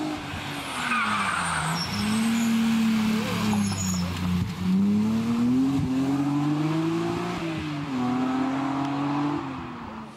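BMW M3 E36 rally car's straight-six engine driven hard, its pitch rising through the revs and falling back several times at gear changes and lifts as the car passes.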